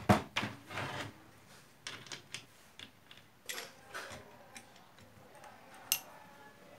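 A metal angle-grinder gear head knocks down onto a wooden workbench, followed by a short clatter. Then come scattered clicks and light clunks of metal parts as it is handled and fitted onto a metal shaft, with one sharp click near the end.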